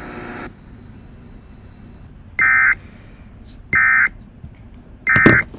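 Emergency Alert System end-of-message tones: three short, buzzy digital data bursts about 1.3 seconds apart, the SAME code that closes a broadcast weather warning. A steady hum cuts off about half a second in, and a click comes with the third burst.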